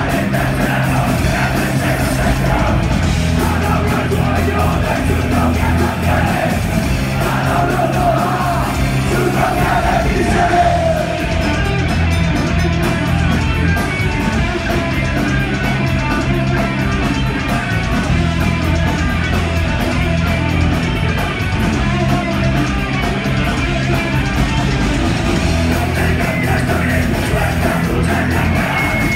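Live punk rock band playing loud and without a break: electric guitars, bass and drums, with the singer shouting the vocals into a microphone.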